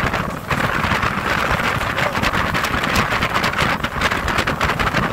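Wind buffeting the microphone aboard a motorboat under way, over the steady noise of the boat's engine and its hull running through the water.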